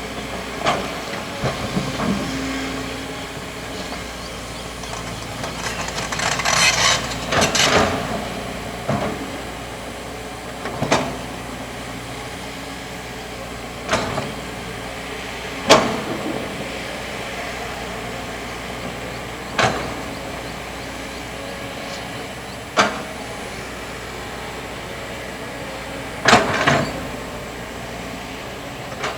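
Kobelco hydraulic excavator running steadily while digging sand, with sharp knocks every few seconds and a couple of longer hissing, rattling bursts.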